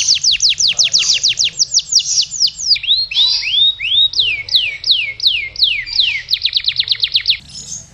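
Domestic canary in long, unbroken song: a fast trill of quick falling high notes, about eight a second, then a few slower rising and falling whistled notes, then another fast trill that breaks off shortly before the end.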